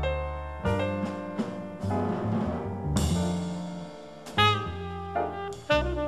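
Jazz sextet of trumpet, alto and tenor saxophone, piano, double bass and drums playing, the horns holding notes over bass and piano, with a cymbal crash about three seconds in.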